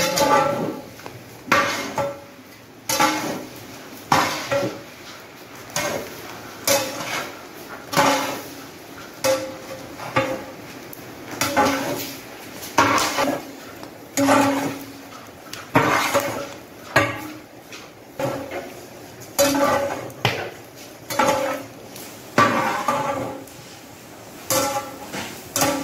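Long-handled metal ladle scraping and knocking against a large metal cooking pot while vegetables are tossed and stirred. There is a stroke about every second and a bit, each with a short metallic ring. The vegetables being mixed are half-steamed, cooking in their own steam without added water.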